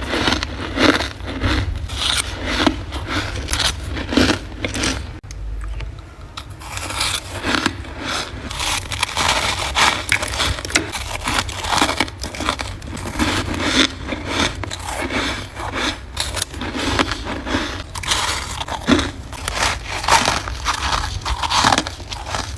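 Freezer frost being bitten and chewed close to the microphone: irregular crisp crunches, with a short lull about five seconds in.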